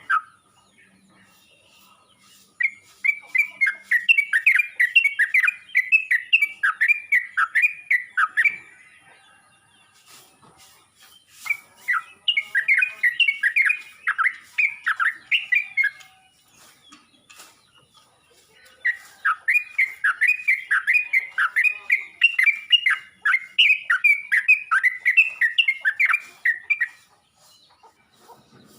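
Yellow-vented bulbul (trucuk) singing its calling song: three bouts of quick, repeated chirping notes, each several seconds long, with pauses of a few seconds between them.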